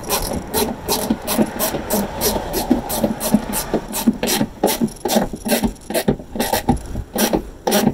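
Hand ratchet with a 10 mm socket, its pawl clicking in a steady run of several clicks a second as it is swung back and forth to run in a fender flare screw.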